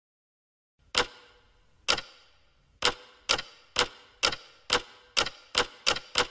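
Sharp ticks that start about a second in and come ever closer together, from about one a second to three or four a second, over a faint steady tone: a ticking sound effect that speeds up as a build-up.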